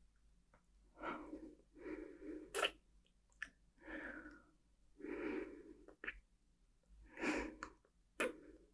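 A woman breathing audibly close to the microphone: about five breathy exhalations roughly a second apart, with a few sharp mouth clicks between them.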